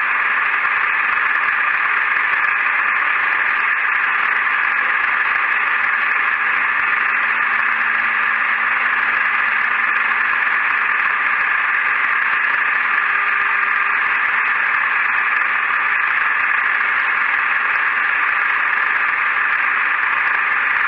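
Metal lathe running steadily while a parting tool cuts off a spinning brass gear blank, a constant, even noise.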